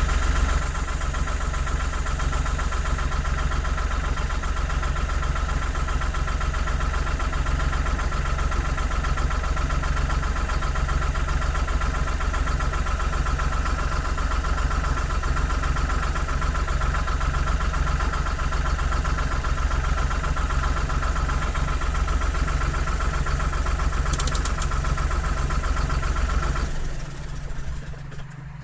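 Tractor engine running steadily with a constant high whine, heard from inside the cab. About 27 seconds in, the whine stops and the engine drops to quieter, lower running.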